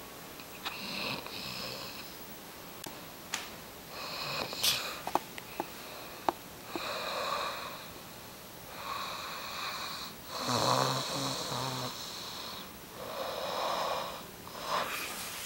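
Snoring: a run of breathy snores, one every couple of seconds, about seven in all. One snore near the middle carries a low buzzing rattle. A few sharp clicks fall between the early snores.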